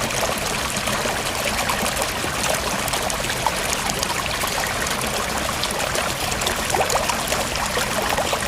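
River water flowing steadily, a continuous rushing wash with small splashes and gurgles scattered through it.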